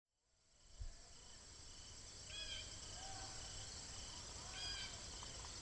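Faint chorus of crickets and other insects: a steady high-pitched buzz with a short chirp repeating a couple of times a second. Two brief calls stand out about two and a half and four and a half seconds in, and there is a soft bump near the start.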